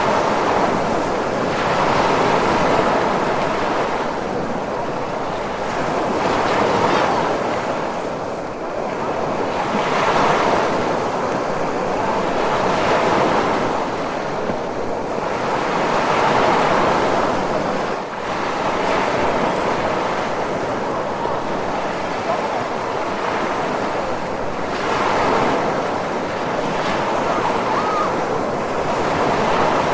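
Ocean waves: a continuous rush of surf that swells and eases every two to three seconds.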